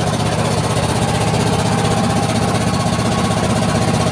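Diesel engine of a wooden klotok riverboat running steadily under way, a rapid, even chugging, heard from inside the boat's covered cabin.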